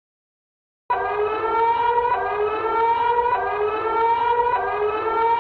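Emergency alert siren starting abruptly about a second in: a rising whoop that repeats about once a second.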